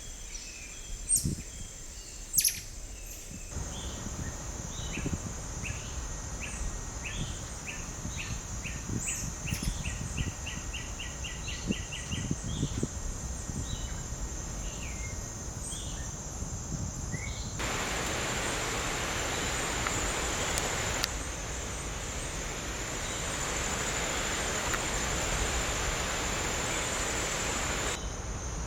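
Tropical wildlife ambience: insects droning at a steady high pitch while birds chirp, one of them giving a quick run of repeated notes about a third of the way in. In the second half a steady rushing noise comes in twice under the insects.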